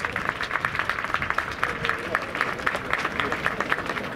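Spectators applauding: many hands clapping sharply and steadily.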